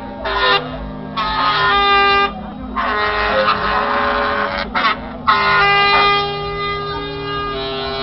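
Train horns played from a keyboard, sounding chords of several notes in a run of blasts. The last chord is held from about five seconds in and changes near the end, with the whoosh of flame jets firing under the horns.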